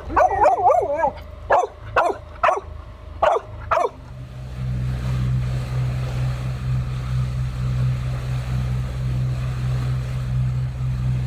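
A dog yelping and then giving about five short, sharp barks over the first four seconds. From about four seconds in, a steady low drone of the boat's engine running under way.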